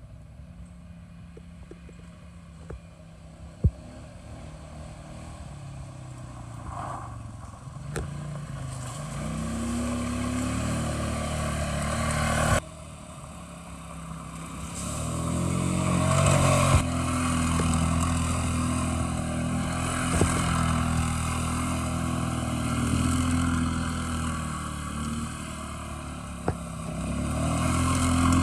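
Four-wheeler (ATV) engine running: quiet and steady for the first several seconds, then louder with the pitch rising and falling as it is throttled during a ride, with a sudden break about twelve seconds in and a few sharp knocks.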